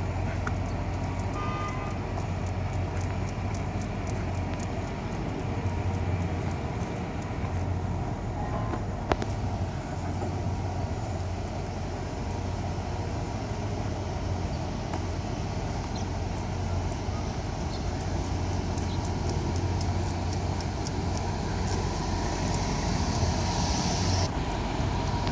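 Steady street traffic: vehicle engines running with a low, steady hum. Near the end there is a hiss that cuts off suddenly.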